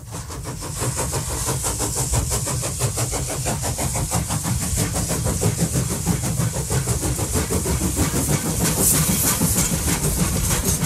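Steam locomotive sound effect: a fast, even chugging beat of exhaust chuffs over steady hiss and a low rumble, fading in at the start.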